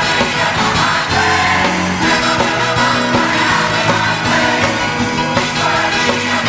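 Live gospel music: a band playing with voices singing along, loud and continuous.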